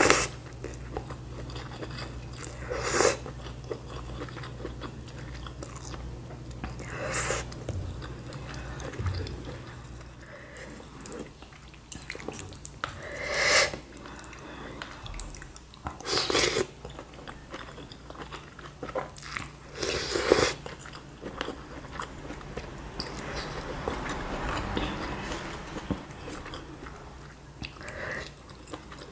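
A person chewing and slurping bakso, noodles and meatballs in soup, with about six short, louder slurps a few seconds apart over quieter chewing.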